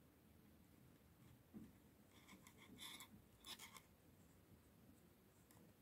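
Near silence with faint rubbing and a handful of light clicks, about two to four seconds in, from metal double-pointed knitting needles and a crochet hook as stitches are picked up along the edge of a knitted sock.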